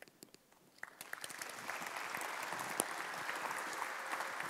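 Audience applauding: a few scattered claps about a second in, quickly building to steady clapping.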